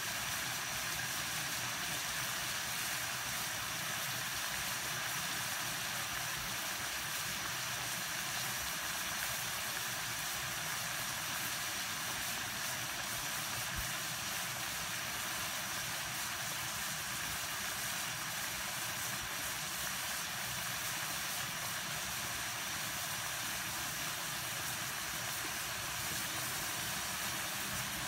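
Water at a rolling boil in a pan over a gas burner, giving a steady hiss with no break.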